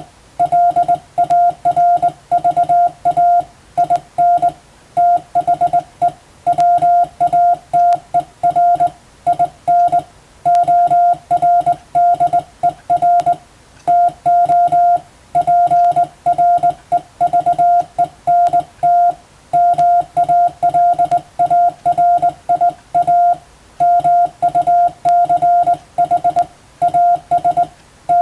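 Morse code (CW) keyed by hand: a single steady beep tone switched on and off in quick dots and dashes, running on without break as practice telegram text in Latin letters.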